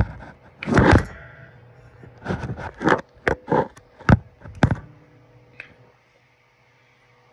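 Phone being handled and repositioned, its microphone brushing and bumping against hoodie fabric: a run of scrapes and knocks over the first five seconds.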